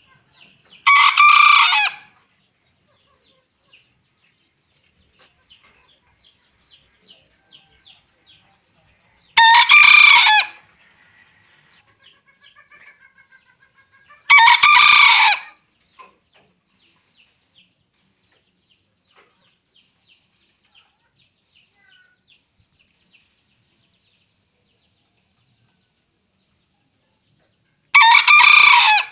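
Four loud pitched bird calls, each a little over a second long: about a second in, near nine and a half seconds, near fourteen and a half seconds, and near the end. Faint, quick chirps run between them.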